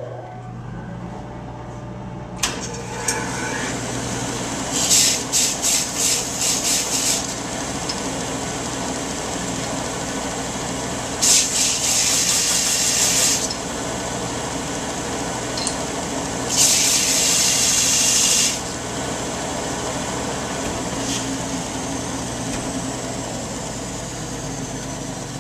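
Delta Industrial vertical belt sander switched on and running, with three loud bursts of sanding noise of a few seconds each as a glued-up wooden strip is lightly bounced against the belt; the first burst comes in quick pulses. Near the end a whine falls in pitch as the sander winds down.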